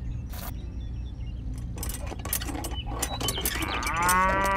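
A cow mooing once, a long call near the end that rises and falls slightly in pitch, over a run of light clicks and clinks.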